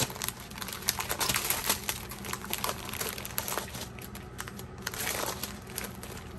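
Plastic zip bags of diamond-painting drills crinkling and rustling as the binder pages holding them are flipped and handled, with many small irregular crackles.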